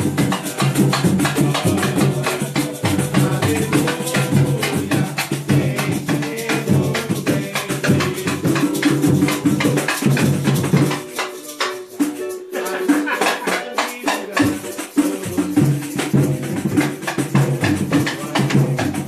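Band music for a hymn: a steady beat of sharp percussion strokes over sustained bass and chords. The bass drops out for a few seconds about halfway through, then comes back in.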